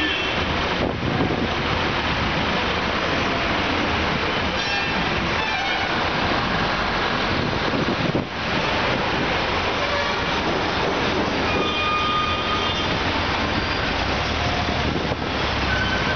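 Road traffic at a toll plaza: truck and car engines running as vehicles pass, giving a steady dense noise with a low rumble. A few brief high tones sound over it, one about four seconds in and another near the twelve-second mark.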